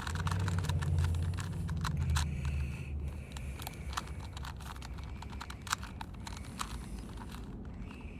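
Plastic Rubik's cube being twisted by hand: irregular clicking and clacking of its layers turning. A low rumble sits under the first three seconds.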